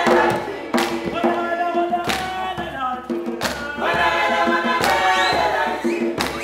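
A group of voices singing together in a choral style, punctuated by sharp percussive hits every one to one and a half seconds.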